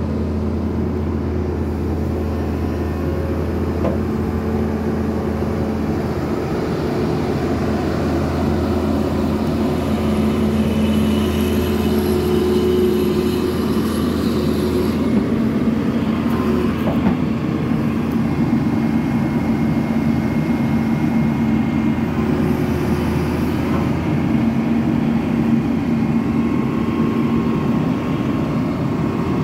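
1996 John Deere 892 ELC excavator's diesel engine running steadily, with a strong low note that drops away about halfway through.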